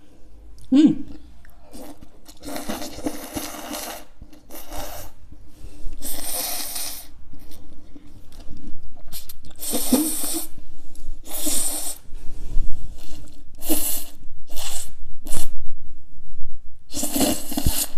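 Ramen noodles being slurped from a bowl in a run of noisy sucking bursts, about ten of them, some lasting a second or more.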